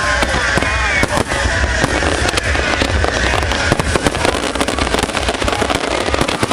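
Fireworks display: a dense, continuous run of rapid bangs and crackles.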